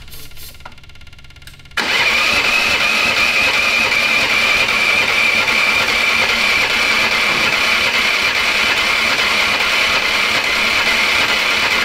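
Turbocharged, fuel-injected Predator 420cc single-cylinder engine cranked on its electric starter, turning over steadily for about ten seconds without firing. The cranking starts suddenly about two seconds in and cuts off near the end.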